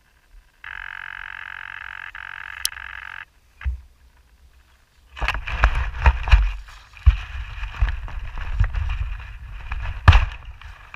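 A model plane's foam fuselage is handled at close range while its battery leads are pulled apart: irregular rustling, knocks and sharp clicks, starting about halfway through. Earlier, a steady buzz lasts about two and a half seconds and then stops abruptly.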